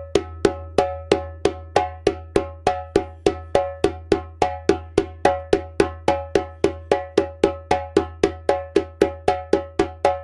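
Djembe played with bare hands in a repeating slap-tone-tone pattern, no bass strokes: evenly spaced ringing strokes at about three a second, over a steady low hum.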